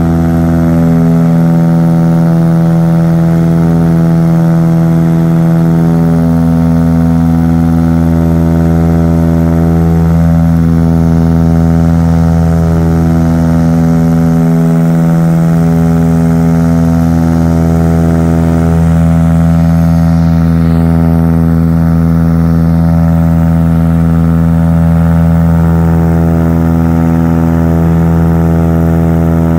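Turboprop airliner's propellers and engines heard from inside the cabin: a loud, steady low drone with a strong hum and many tones above it, one of which slowly swells and fades every few seconds.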